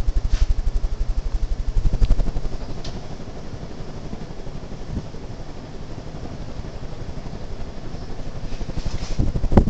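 Hunter Original ceiling fan running on its high speed, its blades sweeping air in a fast, even low throb. The throb is strongest for the first two seconds or so and then eases to a steadier hum.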